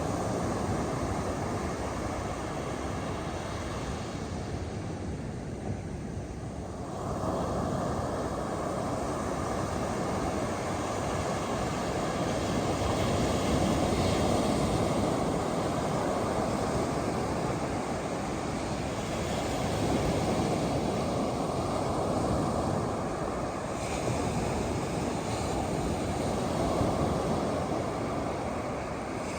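Ocean surf breaking and washing on a beach: a continuous rush of noise that ebbs a few seconds in, surges back about seven seconds in, and keeps swelling and falling with each wave.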